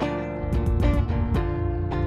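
Film score music with plucked string notes over a held low bass. A new phrase comes in at the start, with a quick run of plucked notes about half a second in.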